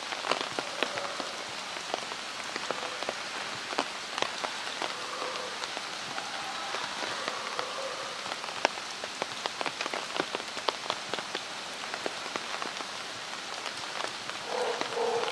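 Steady rainfall, with many irregular drops ticking sharply on nearby surfaces.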